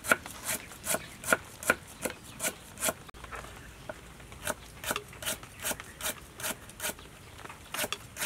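Cleaver slicing lemongrass stalks into thin rings on a round wooden chopping board: a steady knock of the blade on the wood about two or three times a second, with a short pause around three seconds in.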